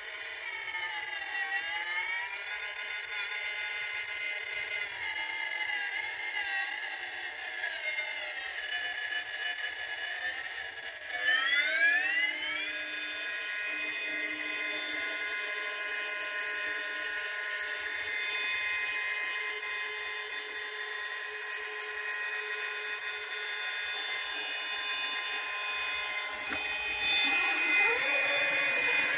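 Whine of a Holmes Hobbies Revolver brushless motor and drivetrain in an RC rock crawler running on a 6S LiPo, its pitch dipping and recovering as the truck works over concrete steps. About 11 s in the pitch rises sharply, then holds steady and gets a little louder near the end.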